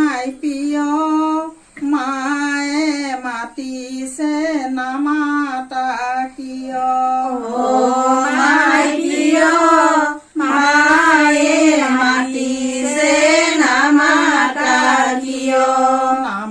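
A woman's voice singing a slow Assamese tulani biya song (biya naam), with long held notes and gliding ornaments and no instruments.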